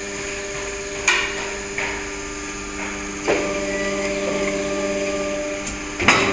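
Vertical two-station shoe-sole injection molding machine running: a steady hydraulic hum with metal clanks about one and two seconds in, a louder stretch from about three seconds, and two sharp knocks near the end as the mold comes out onto the table.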